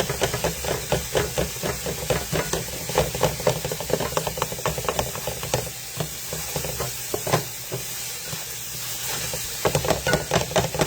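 Food sizzling in a pan while a utensil stirs it, clicking and scraping against the pan several times a second. The clicking eases off midway and picks up again near the end.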